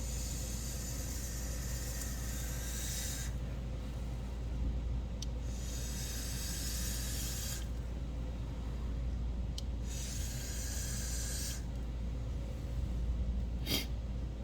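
Vape coils sizzling in a rebuildable tank on a box mod firing at 90 watts, as vapour is drawn through in three hits of about four, two and a half and one and a half seconds. Each hit is preceded by a short click.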